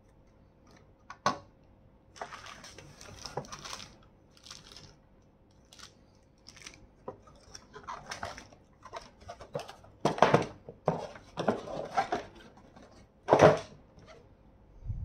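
Handling noises from unpacking a torch: plastic wrap and a cardboard box rustling, with a few sharp knocks of parts set on the glass tabletop. Near the end there is a louder scrape as the box is pushed across the table.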